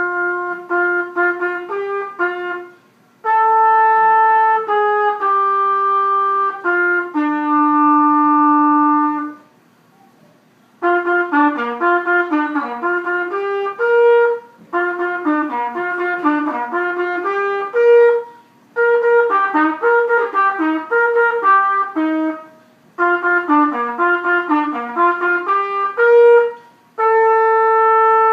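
Solo trumpet playing a tune in phrases: runs of quick, separately tongued notes, a few long held notes, and short breaks for breath between phrases.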